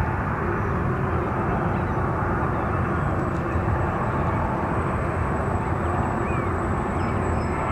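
Steady rumble of airliner jet engines on the runway, with no rise or break.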